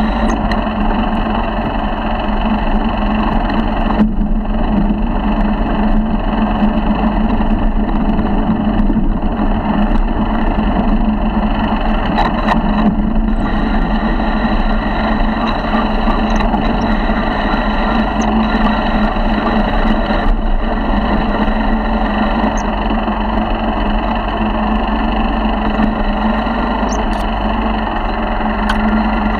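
A 50cc four-stroke motorized bicycle engine running at a steady speed under way, a constant drone, with a few brief clicks near the middle and near the end.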